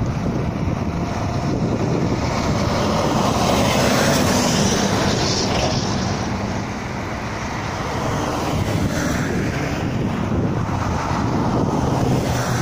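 Wind rushing over the microphone along with road traffic noise, swelling as vehicles pass a couple of times.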